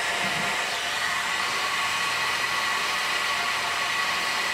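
Handheld electric heat gun running steadily, blowing hot air onto the socket's cable wiring: a constant rush of air with a faint whine.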